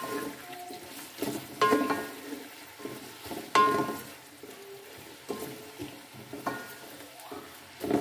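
Sliced onions sizzling in hot oil in a steel pot as a spatula stirs them, scraping and knocking against the pot. Three louder knocks in the first half, about two seconds apart, make the pot ring briefly; softer scrapes follow.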